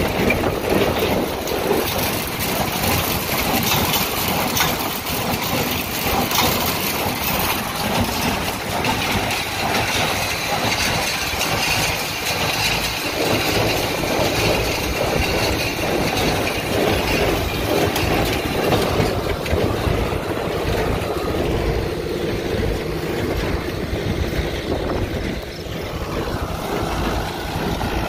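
Tractor engine running steadily while pulling a Massey Ferguson 124 square baler, with the baler's machinery working. The sound eases slightly about halfway through.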